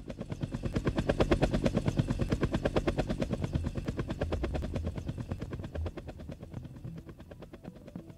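Helicopter rotor blades chopping in a fast, even beat of about ten pulses a second, swelling in over the first second and then slowly fading away.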